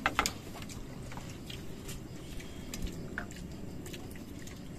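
Quiet sounds of a meal eaten by hand from plates: a few faint scattered clicks and small taps over a steady low background hum.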